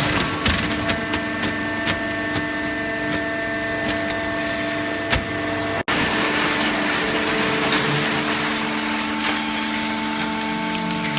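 Hydraulic baling press running: a steady machine hum of several tones, with scattered clicks and knocks. The sound cuts out briefly about six seconds in.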